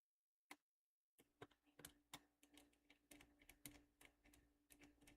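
Faint small clicks and ticks: one about half a second in, then a quick irregular run from just past a second, over a faint steady hum. A small screw being picked out and driven in to hold down a laptop SSD.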